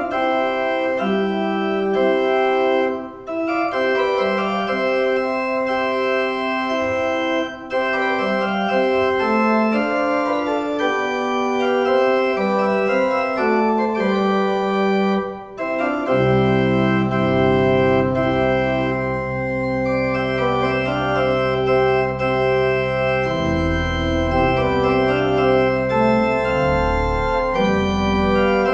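Organ playing slow held chords, with deep pedal bass notes joining about halfway through.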